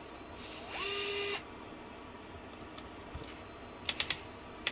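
DeWalt battery-powered cordless driver spinning briefly about a second in, a short whir that rises in pitch, holds and cuts off, as it cracks loose a threadlocked screw. A few light clicks follow near the end.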